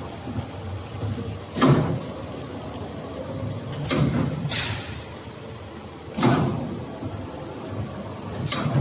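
A cereal bar cutting machine running, with a steady running noise and four sudden sliding strokes, one about every two and a quarter seconds, as its cutter cycles.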